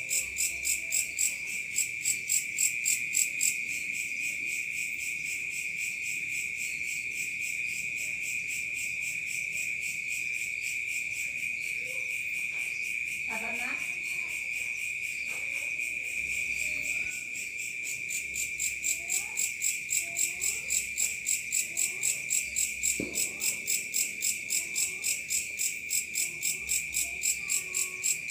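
Crickets singing at night: a steady high trill with a second insect chirping in even pulses, about three a second. The pulsing drops away after the first few seconds and comes back a little past the middle.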